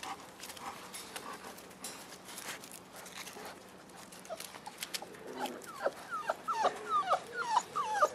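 Five-week-old Boerboel puppies whining: a quick run of about eight short, high whines that slide up and down in pitch, starting about two-thirds of the way in.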